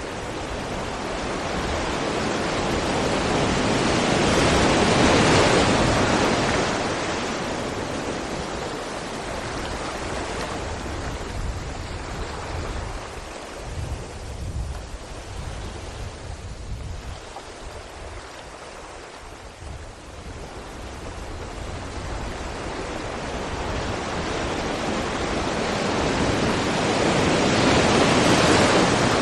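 Sea waves breaking against rocks, a steady wash of surf that swells to a loud peak about five seconds in, ebbs through the middle and builds to a second peak near the end.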